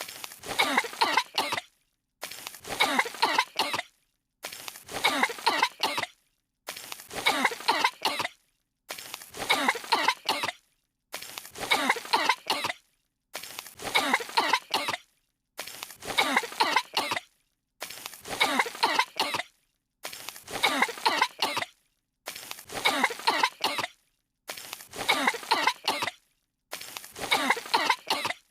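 Two cartoon characters coughing from dust, voice-acted. A roughly two-second stretch of coughing repeats over and over with a short silent break between repeats.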